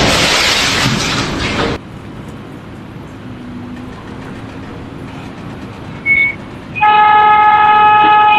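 A loud rushing noise that cuts off about two seconds in. After a quieter stretch and a short high beep, a long, steady horn blast starts near the end.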